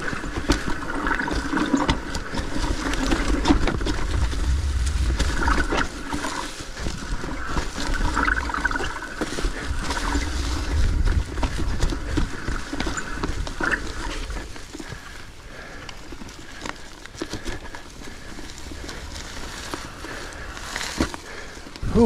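Mountain bike ridden hard over a rocky trail covered in dry leaves: tyres rumbling and the bike knocking and rattling over rocks, with the rider breathing heavily from the climb. It grows quieter about two-thirds of the way through.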